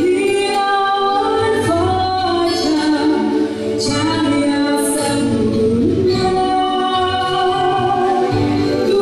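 A woman singing into a microphone over instrumental accompaniment, holding long notes that slide up and down in pitch.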